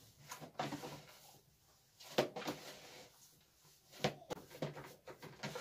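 Hands kneading a minced-meat köfte mixture in a plastic basin: short bursts of squishing and slapping strokes, with brief pauses between the bursts.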